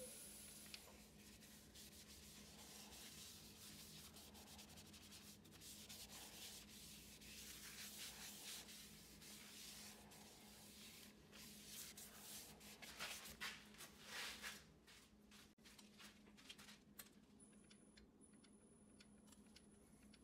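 Faint cloth wiping and rubbing over the wooden face of a cherry and epoxy-resin platter, a run of soft scuffs that grows busier past the middle and then eases off.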